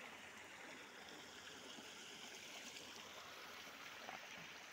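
Faint, steady rush of shallow stream water flowing over rock.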